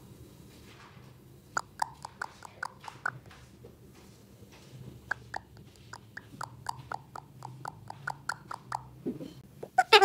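Soft clicking sounds, several a second. Near the end comes a short call from the Alexandrine parakeet.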